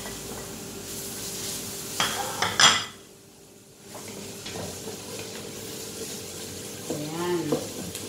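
Onion, garlic and ginger sizzling in olive oil in a stainless steel pot while a wooden spatula stirs them. A few sharp utensil clatters come about two seconds in, and the sizzle drops away briefly just after.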